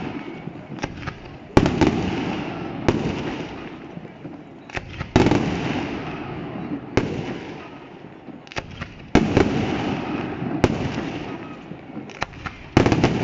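Fireworks bursting: seven heavy bangs, one every one and a half to two seconds, each followed by a rolling echo that dies away, with smaller pops and crackles in between.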